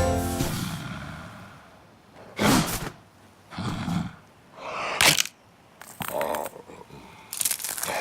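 Music dying away, then a cartoon character's short wordless vocal sounds, gasps and grunts, five in a row about a second apart.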